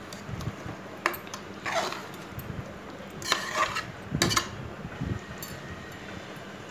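A spoon stirring thick chicken gravy in an aluminium pressure cooker, scraping and clinking against the pot's metal side in a handful of irregular strokes.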